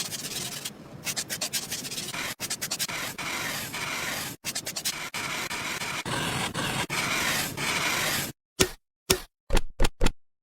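Continuous rough rubbing and scraping of a small hand tool working a surface, as in building a miniature model. In the last two seconds it breaks into a few short, sharp scrapes with gaps between them.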